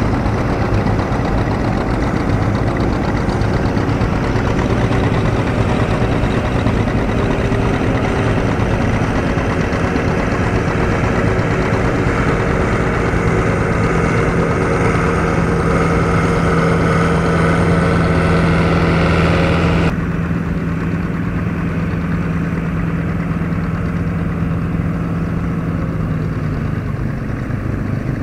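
Antique farm tractor engines running steadily while pulling plows, a green John Deere passing close at first. About twenty seconds in the sound abruptly turns duller, with a steady low hum carrying on.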